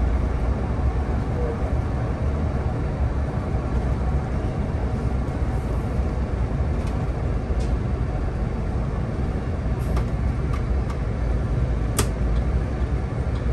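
Solaris Urbino 18 articulated city bus driving, heard from the driver's seat: a steady low engine and road rumble, with a few faint ticks and one sharp tick about twelve seconds in.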